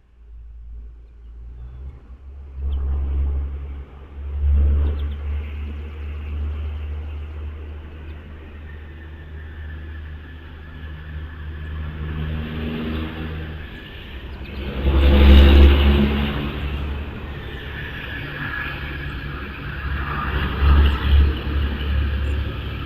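Low rumble of a motor vehicle running past, rising and falling, loudest about fifteen seconds in.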